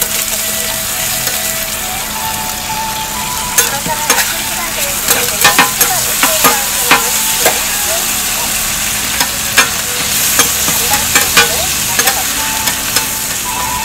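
Sausages, eggs and meat sizzling on a flat-top griddle, a steady high hiss, with metal tongs and a spatula clicking and scraping against the hot plate. The clicks come thickest from a few seconds in until near the end.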